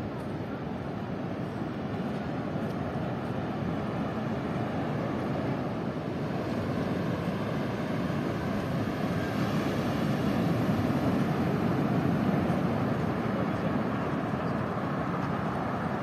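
Ocean surf breaking on a stony beach: a steady rushing noise with most of its weight low down, swelling louder around the middle.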